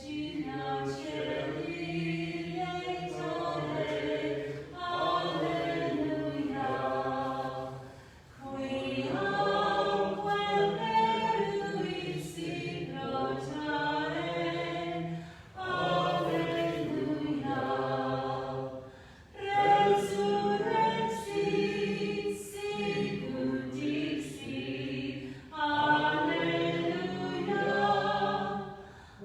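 Voices singing a hymn in phrases a few seconds long, with a short break between phrases.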